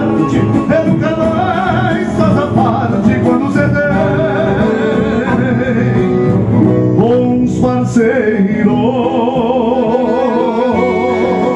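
Live gaúcho folk music: a man singing long, wavering notes over several acoustic guitars.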